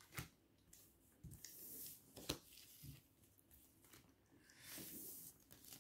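Near silence: room tone with a few faint, soft clicks and rustles.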